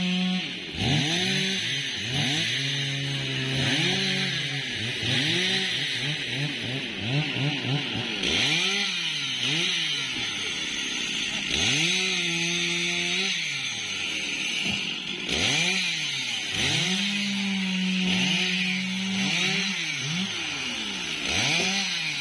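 Chainsaws running off to the side, their engine pitch rising and falling again and again as the throttle is opened and eased, at times held high for a second or two; more than one saw overlaps at different pitches. The sound cuts off suddenly at the end.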